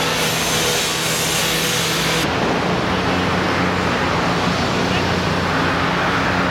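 Steady vehicle and road traffic noise: engine hum under a loud hiss of tyres and air. About two seconds in, the highest part of the hiss drops off sharply.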